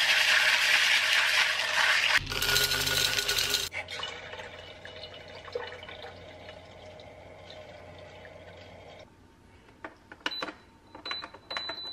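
Tap water running over red beans being rinsed by hand in a plastic bowl, then a thinner stream of filtered water filling the glass jar of an electric health kettle, stopping about nine seconds in. Near the end come a few button clicks with short high beeps as the kettle is set.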